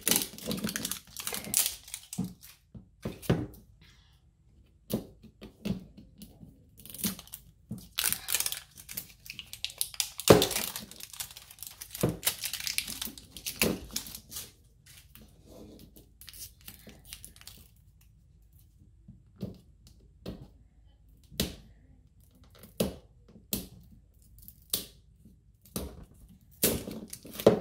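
Wrapper layers being peeled and torn off an L.O.L. Surprise toy ball: irregular spurts of ripping and crinkling with short pauses between.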